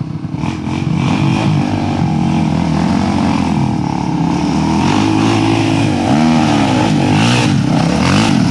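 Honda Tornado trail motorcycle's single-cylinder engine revving hard, its pitch rising and falling again and again as the rider works the throttle on a hill climb.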